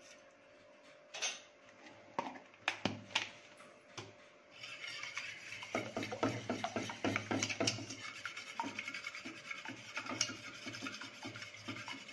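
A few sharp taps of a metal spoon on a steel bowl, then from about four and a half seconds in a wire whisk beating eggs briskly in the steel bowl, fast scraping strokes of the wires against the metal.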